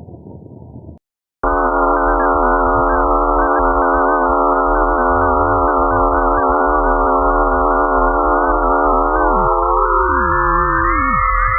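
Synthesized electronic drone: a low rumble cuts off about a second in, then after a short gap a dense cluster of steady sine-like tones starts abruptly. Near the end some of the tones slide down in pitch while others glide upward.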